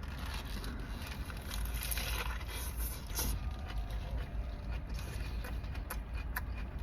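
Crinkling and handling noises with scattered small clicks, loudest about two to three seconds in, over the steady low rumble of a car.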